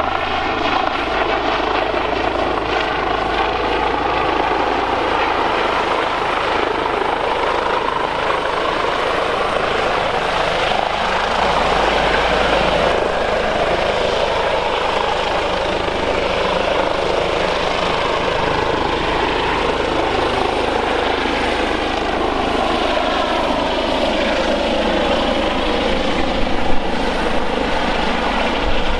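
Airbus H145 helicopter's turbine engines and rotors running steadily in close flight. The pitch of the rotor and turbine noise slowly rises and falls as the aircraft moves.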